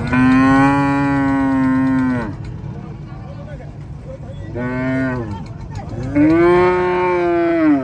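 Cows mooing: a long moo at the start, a short one about halfway through, and another long moo near the end.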